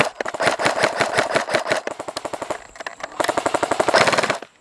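Airsoft gun firing on full auto: rapid streams of shots for about two and a half seconds, then after a short pause a second, denser burst lasting about a second and a half.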